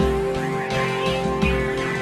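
Music: several sustained steady tones held over a low pulse that repeats about every 0.7 seconds.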